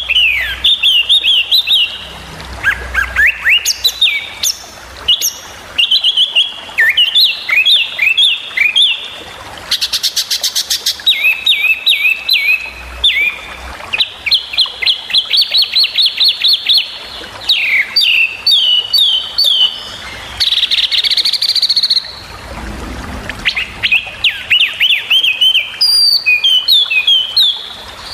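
A small songbird singing in short, sharp bursts of rapid chirps and down-slurred trill notes, with a fast buzzy rattle about ten seconds in and a harsh rasping phrase about twenty seconds in. These are the sharp 'tembakan' (shot) phrases of a masteran, a song recording for training caged songbirds.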